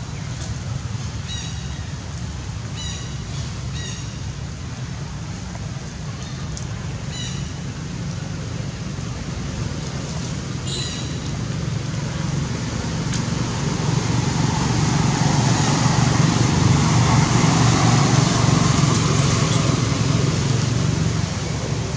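Roadside traffic noise with a steady low hum. A vehicle passes, swelling up from about halfway through, loudest near the end, then fading. A few short high chirps come in the first half.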